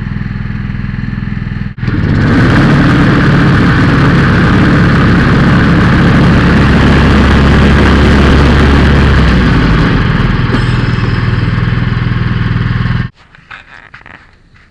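Riding lawn mower engine running, much louder from about two seconds in, with a shift in its low tone around ten seconds. It cuts off suddenly near the end.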